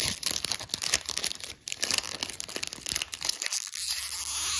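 Foil trading-card pack wrapper torn open and crinkled by hand: a dense, irregular crackling that turns smoother near the end.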